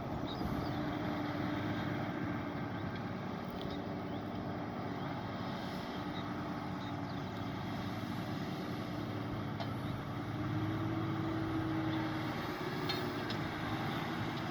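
Tractor engine working steadily under load, pulling a plough across the field. Its drone rises slightly and grows a little louder about two-thirds of the way through.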